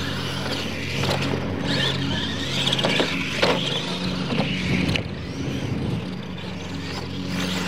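Radio-controlled monster trucks racing on a dirt track: a high motor whine that rises and falls, with several sharp knocks, over a steady low hum.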